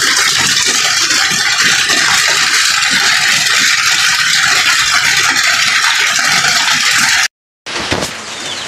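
Heavy rain falling, a loud steady hiss. It cuts off for a moment near the end and comes back quieter.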